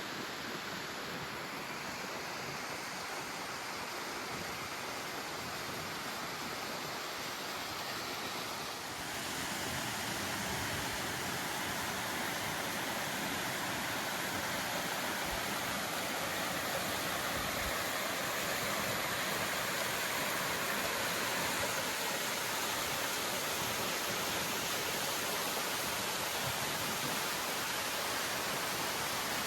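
Steady rush of falling water from Ribbon Fall, a little louder from about nine seconds in.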